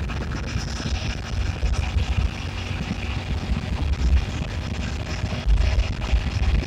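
Wind buffeting the microphone of a phone on a moving motorcycle, a gusty low rumble over the steady running of the engine and tyres on the road.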